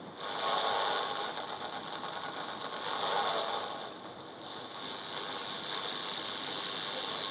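Small portable AM radio hissing with static as its tuning dial is turned, the noise changing in tone and level as the dial moves while searching for the carrier of a nearby low-power AM transmitter.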